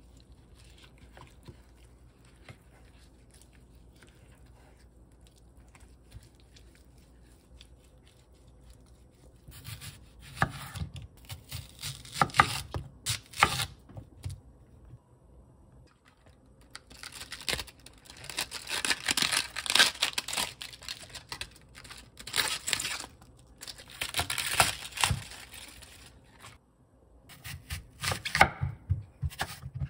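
A kitchen knife slicing raw onion into thick rings on a wooden cutting board: crisp, crackly cuts with knocks of the blade on the board, in clusters from about ten seconds in. Near the end the knife cuts into a whole apple. The first third is quiet apart from faint handling.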